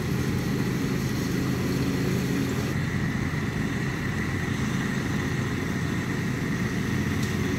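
Propane cooker burner running steadily under a 60-quart pot of water that is heating toward a boil: an even, low sound that does not change.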